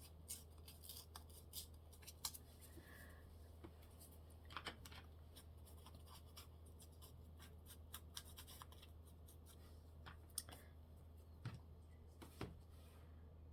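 Faint scattered clicks, taps and rustles of paper being handled and worked with craft tools, a few louder taps near the end, over a low steady hum.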